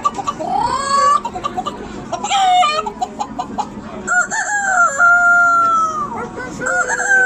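A man imitating a chicken and rooster with his voice. Short clucking calls come first. From about four seconds in there are two long crowing calls, the second still going at the end.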